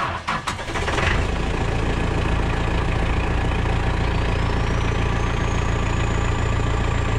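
Caterpillar backhoe loader's turbocharged four-cylinder diesel cold-starting at 15 °F: it catches about a second in and settles into a steady idle. From about three seconds in, a thin turbocharger whistle rises in pitch as the turbo spools up.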